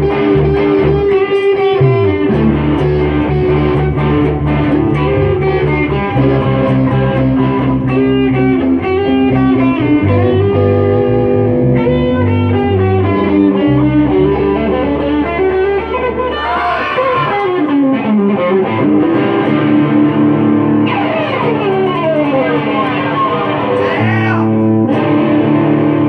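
Instrumental passage of a song led by guitar over bass, with no singing. It has held chords and, in the second half, sweeping slides in pitch.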